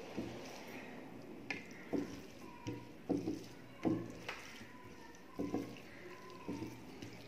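Fingers mixing cooked rice with dal by hand on a plate: a string of short, soft wet squishes at irregular intervals, with a few light clicks of fingers against the plate.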